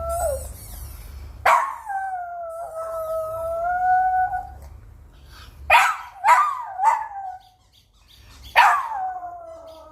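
Dog howling in long, drawn-out notes, with three short sharp barks in the middle. Each howl starts abruptly, the first about a second and a half in and another near the end.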